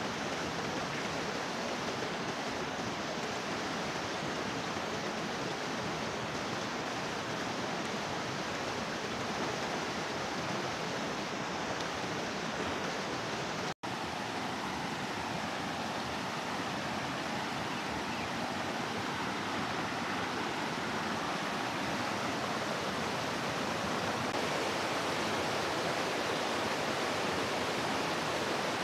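Steady rush of flowing water, an even noise with no distinct events. The sound drops out for an instant about halfway through.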